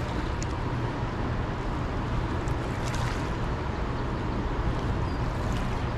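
Steady rush of a flowing river with a low rumble of wind on the microphone, and a few faint clicks.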